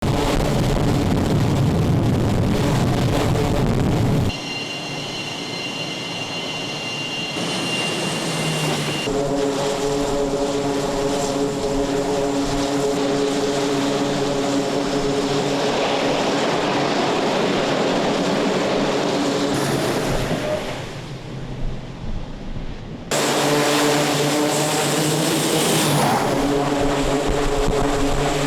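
Military aircraft engines running on an aircraft carrier's flight deck: a steady turbine whine with several engine tones, changing abruptly at several edits between shots.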